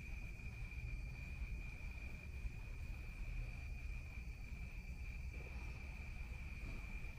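An evening insect chorus: a steady, unbroken high-pitched trill, with a low rumble underneath.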